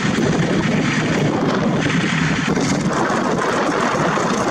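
Many walking tractors' single-cylinder diesel engines running together in a convoy, a loud, steady, choppy clatter, with wind buffeting the microphone.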